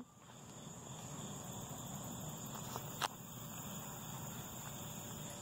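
Steady high-pitched chirring of crickets, with one sharp click about three seconds in.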